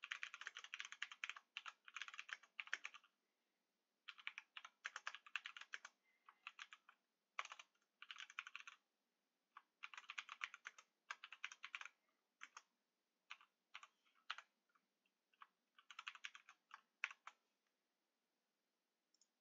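Typing on a computer keyboard: quick runs of keystrokes in bursts with short pauses between them, the last keystrokes sparser before the typing stops near the end.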